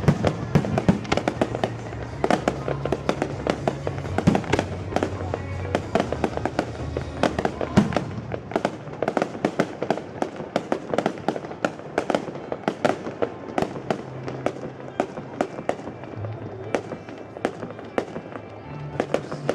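Fireworks display: shells bursting in quick succession, a dense run of bangs and crackles several times a second.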